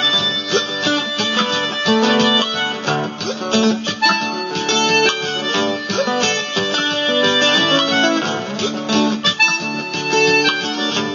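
Loop-pedal music: many looped parts stacked on top of each other, playing a dense, repetitive pattern of pitched notes.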